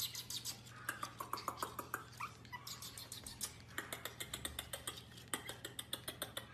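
Pomeranian puppy giving small high whimpers, mostly between one and two and a half seconds in, over a rapid run of clicks and a faint low hum.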